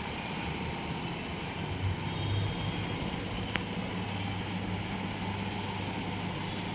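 Steady low mechanical hum, with a single sharp click about three and a half seconds in.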